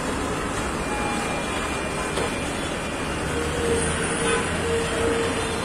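Steady street traffic noise with a low rumble. A vehicle horn sounds one long steady note for about two seconds near the end.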